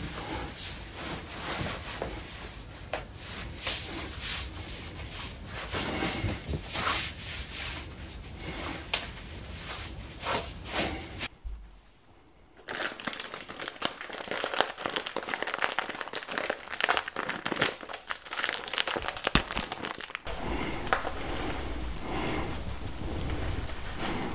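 Crinkling and rustling from handling, with small clicks and knocks; after a short lull a little before halfway, a flour packet crinkles as flour is poured into a stainless steel scale pan.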